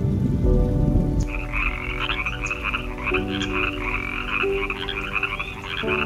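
Rain-and-thunder noise for about the first second, then a frog calling in a run of fast, pulsed croaks, over background music with sustained chords.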